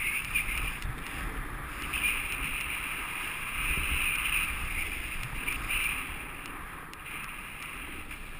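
Snowboard sliding and carving over groomed snow: a steady scraping hiss that swells and fades through the turns, mixed with wind rushing over the camera's microphone. It is loudest around the middle and eases off near the end.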